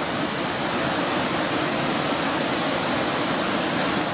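Steady rushing of a waterfall and stream running high in flood after heavy rain.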